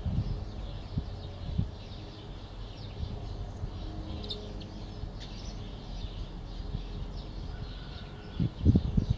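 Chicks peeping faintly, many short high chirps. A few dull low thumps come in, the loudest in a cluster near the end.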